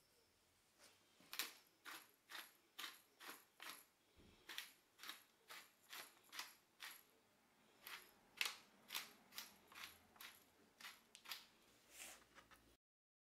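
Hand-twisted pepper mill grinding black peppercorns: faint, crisp crunching clicks about twice a second, one with each twist, with a short pause partway through.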